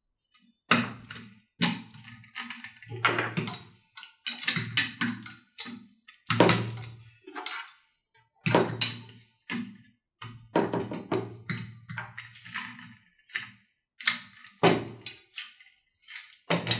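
Irregular knocks and thuds as casters are pushed and knocked into the legs of a swivel chair's five-star base. Most knocks are followed by a short low ring.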